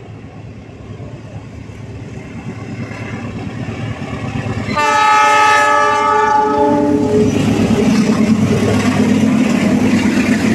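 Diesel-hauled passenger train approaching, its rumble growing louder, then the locomotive sounds one long horn blast of several notes at once, about five seconds in, as it draws level. The coaches then roll past with a loud, steady rumble of wheels on rail.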